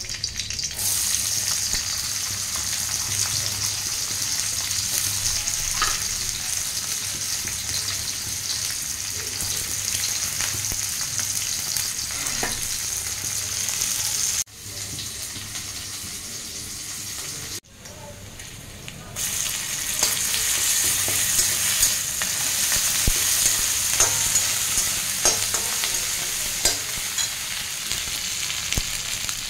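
Hot oil sizzling in a kadhai as bay leaves, green chilli and then sliced onions fry, with a metal spatula stirring and scraping the pan. The sizzle cuts off abruptly about halfway through, comes back quieter, then louder again for the last third.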